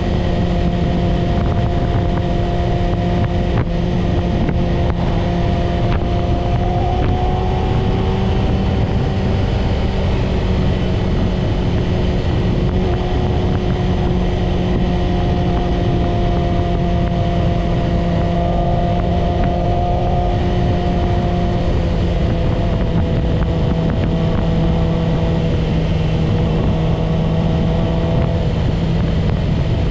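Yamaha YZF-R6's inline-four engine running at a steady cruise, its pitch drifting gently up and down with small throttle changes, over a steady rush of wind.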